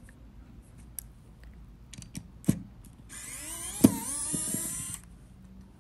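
Pen-style electric precision screwdriver whining for about two seconds, its pitch shifting, as it drives out a small Phillips screw. A few light clicks and taps of handling come before it.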